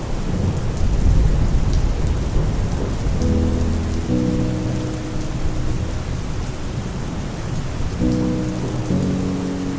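Steady heavy rain with a low thunder rumble in the first few seconds, and soft sustained chords of a lo-fi intro coming in about three seconds in.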